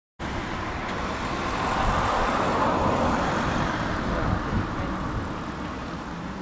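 Road traffic noise, swelling as a vehicle passes about two to three seconds in and then easing, over a low uneven rumble.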